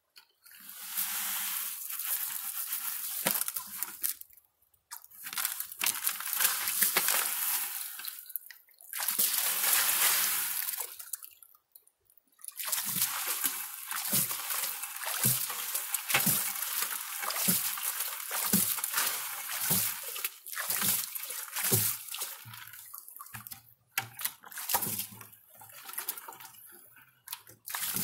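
Creek water pouring and sloshing in a plastic five-gallon bucket as it is rinsed out, washing the last gravel into a gold pan. There are three separate pours early on, then steady sloshing with quick low thuds as the water is swirled around the bucket.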